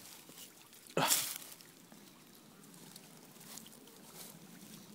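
A sudden short rush of noise about a second in, fading away over about half a second, followed by faint scattered rustles and clicks.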